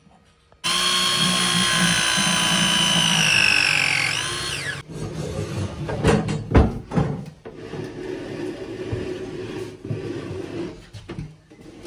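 Power drill running for about four seconds, its pitch sagging slightly as it bites, then stopping abruptly. Then a run of knocks and scraping as a length of copper pipe is handled and fed through the cabinet unit.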